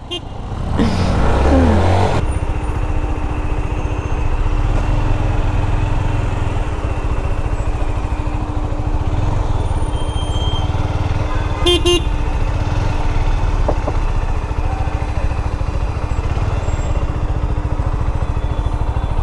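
Motorcycle engine revving up about a second in as the bike pulls away, then running steadily in slow city traffic. A short horn toot sounds about midway.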